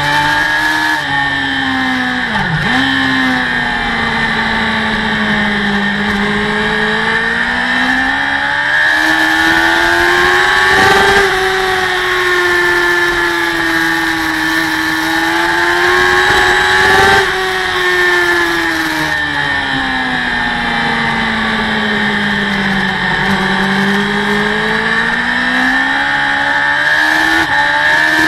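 Racing motorcycle's engine heard from on board at speed, its pitch rising and falling smoothly as the revs change, with a sharp brief dip about two and a half seconds in and short breaks in the sound near the middle.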